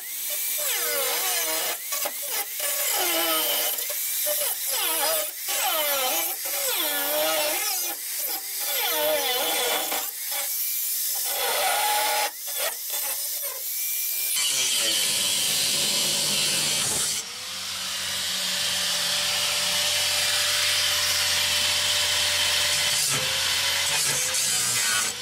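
Power tool with an abrasive cutting wheel slicing through the sheet-steel inner rocker panel of a pickup cab, just inside the spot welds. The motor's pitch dips and recovers as the wheel loads up, with a few short pauses. From about 14 seconds in it runs as one steadier continuous cut.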